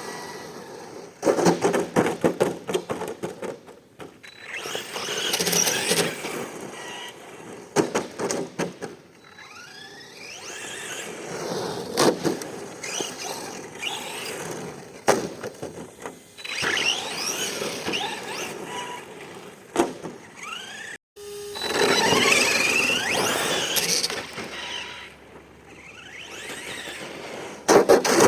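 Arrma Senton 3S RC truck driving hard on pavement: the electric motor whines up and down in pitch with the throttle, and the tyres squeal. Sharp clatters and knocks come from bumps, landings and crashes.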